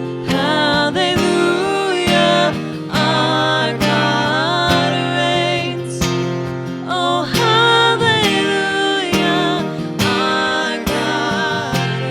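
Worship band music: strummed acoustic guitar over a held low note, with a melodic line bending and gliding above it.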